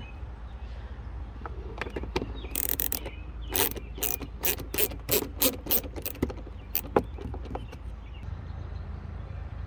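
Ratchet clicking as a 7 mm door-panel screw is backed out. The clicks come scattered at first, then in a regular run of about three a second from about three and a half to seven seconds in.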